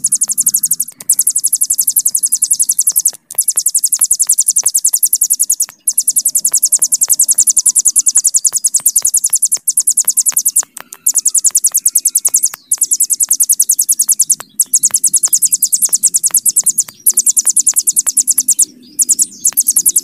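Hill prinia (ciblek gunung) singing its long, very rapid, high-pitched trill (the 'bren'). The trill comes in runs of a few seconds each, broken by brief pauses.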